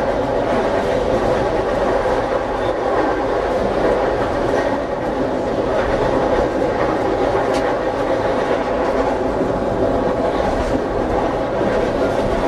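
Tatra T3SU tram running along the track: a steady rumble of steel wheels on rails and running gear, heard from aboard.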